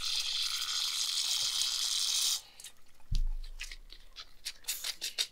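Aerosol brake cleaner spraying into a ball bearing in a steady hiss that stops about two and a half seconds in. A thump as the spray can is put down, then quick clicking and rattling as the bearing is turned by hand, its balls running metal on metal with the old grease washed out.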